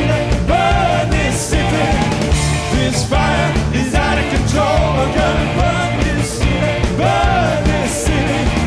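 Live rock band playing loud: drums, bass and electric guitars, with a voice singing over the band.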